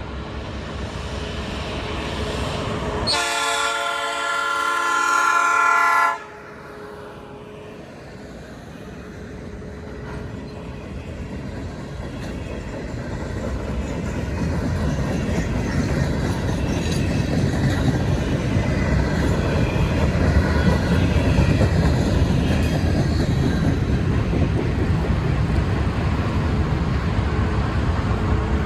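Locomotive air horn sounding a loud multi-note chord for about three seconds, cut off abruptly. A passing train's rumble and wheel noise on the rails then builds and runs steadily.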